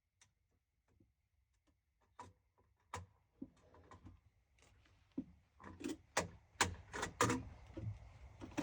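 Irregular small clicks and knocks of handling, sparse at first and getting busier over the last few seconds; no gunshot.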